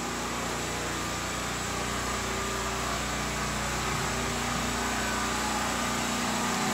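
A steady mechanical drone of a motor or small engine running without a break, growing slightly louder toward the end.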